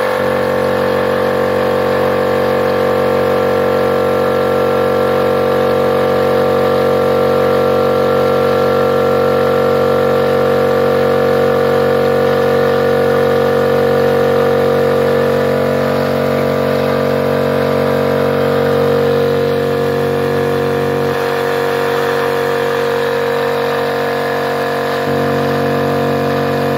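MultiPro DCC-075/10 OW 3/4 HP electric air compressor running steadily as it fills its tank. Its tone shifts a little several times in the second half. Its motor's thermal protector has just been loosened so that it no longer cuts out when hot.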